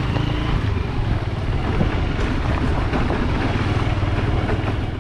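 Motorcycle engine running steadily while the bike is being ridden.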